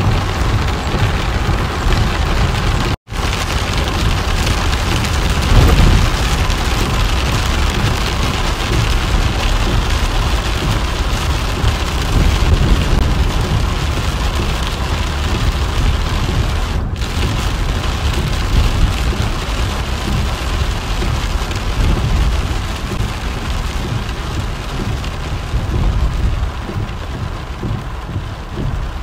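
Heavy rain hitting a car's roof and windshield, heard from inside the moving car: a steady hiss over a low rumble of wet-road tyre noise. It cuts out for an instant about three seconds in.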